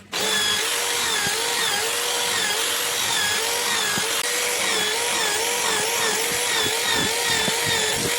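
Scroll saw running and cutting wood: a steady motor whine that dips and recovers about twice a second as the blade works through the cut, with a few sharp clicks.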